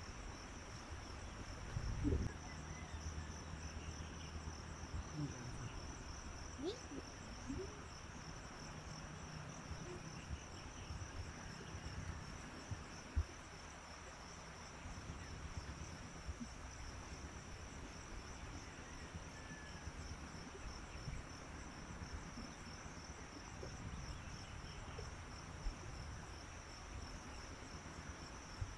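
Insects chirring steadily in a high, finely pulsing trill over a low rumble, with a few soft knocks and one sharp click about 13 seconds in.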